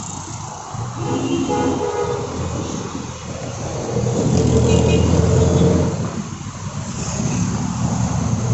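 Roadside traffic on a busy city avenue, with a vehicle horn sounding about a second in and a louder vehicle passing about four to six seconds in.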